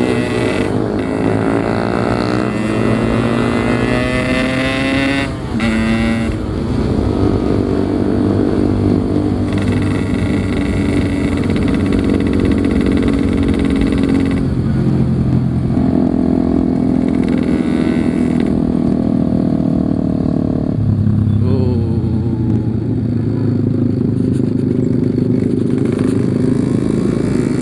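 Two-stroke Yamaha RX-King motorcycle engine running under way, its pitch rising and falling with throttle and gear changes, with a brief dip about five seconds in.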